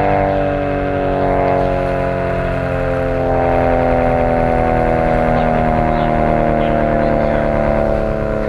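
Vintage WWII air-raid siren sounding, several tones at once sliding slowly and steadily down in pitch.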